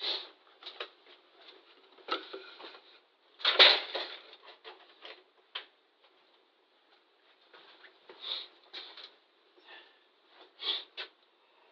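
Irregular handling noises: small tools and objects clicking, knocking and rustling as they are picked up and put away, with a louder clatter about three and a half seconds in.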